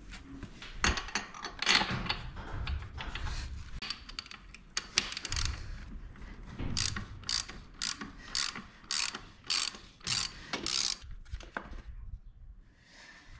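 Ratchet wrench with a spark plug socket clicking as it works the spark plug out of a Yamaha Zuma YW50's 49cc two-stroke engine. After some irregular handling rattle, the second half brings a regular run of about eight clicking ratchet strokes, roughly two a second.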